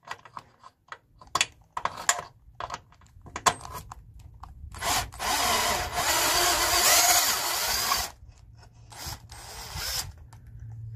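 Power tool spinning an E12 Torx socket on a long extension to undo a BMW N52 engine mount bolt. A few light metallic clicks as the socket is fitted, then the tool runs steadily for about three seconds, stops, and runs briefly once more about a second later.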